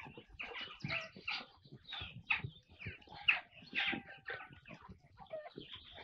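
Poultry clucking and calling in a quick, irregular run of short calls.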